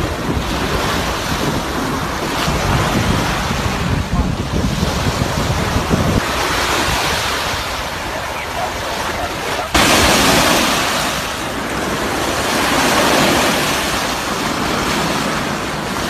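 Small waves breaking and washing up a sandy shore, with wind rumbling on the microphone. About ten seconds in, the sound jumps suddenly to a louder, hissier wash of surf.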